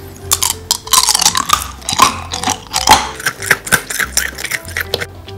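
Close-up chewing of a piece of eraser-shaped gum: quick, irregular wet clicks and smacks from the mouth.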